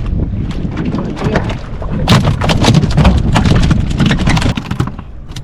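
Steady low rumble on a fishing boat at sea, with a run of rapid knocks and thumps from about two seconds in that dies down near the end.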